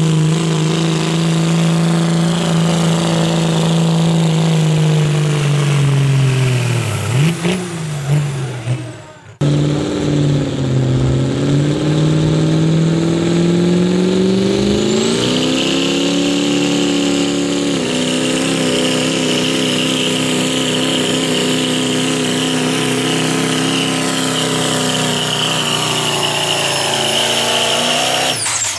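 Pulling pickups' turbo diesel engines at full throttle under the load of a pulling sled. A Dodge Ram's diesel runs hard, then its pitch sags and falls away. After an abrupt break, a 2002 GMC's Duramax diesel winds up and holds high revs, with a steady high whistle over it.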